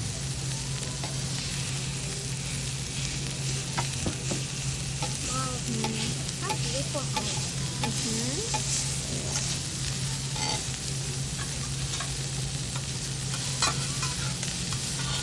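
Food sizzling on a hibachi griddle, a steady frying hiss with a few sharp metallic clicks of the chef's spatula against the hot plate. A steady low hum runs underneath.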